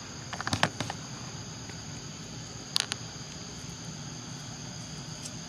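Steady high-pitched chirring of insects in the forest, with a quick cluster of sharp clicks about half a second in and another sharp click near three seconds.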